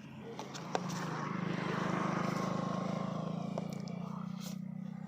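A vehicle passing by: its noise swells to a peak about two seconds in and slowly fades, over a steady low hum, with a sharp click just under a second in.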